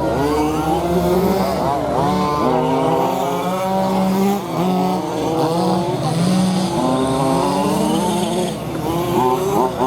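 Motors of several RC cars revving up and easing off, pitch rising and falling repeatedly with quick run-ups, over a steady low hum.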